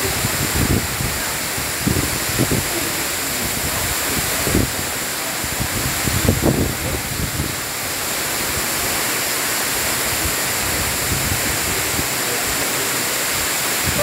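A tall waterfall falling onto rock, giving a steady, dense rush of water. A few short low bumps come through in the first half.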